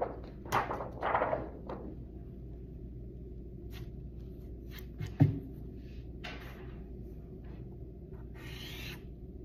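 Paper rustling as a sheet is lifted and handled in the first two seconds, then a single thump about five seconds in. Near the end comes a soft pastel stick rubbing across paper. A steady low hum runs underneath.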